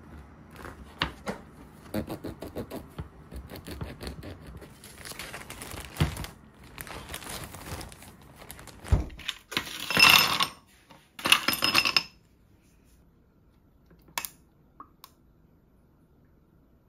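Sliced crusty sourdough bread is handled on a wooden cutting board, giving many small crackles and taps with a dull thump or two. Then a clear plastic zipper storage bag crinkles loudly in two bursts of about a second each as the slices go into it, followed by a single light click.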